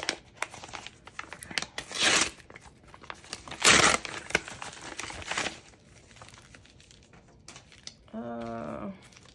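Packaging being handled, crinkled and torn open by hand, in irregular rustles with two louder rips about two and four seconds in.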